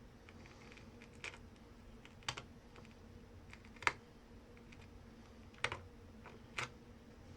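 Small hand tools clicking and tapping against a phone's back, about five light, sharp ticks spread a second or so apart, over a faint steady hum.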